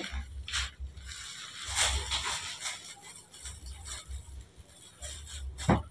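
Scattered rustling and crinkling of plastic bags and fruit being handled, with a sharp knock near the end.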